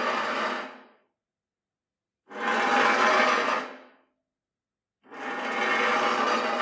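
Metal chair dragged across a hard floor in repeated scraping pulls with a ringing screech in them. One pull ends about a second in, a full pull comes in the middle, and a third begins near the end.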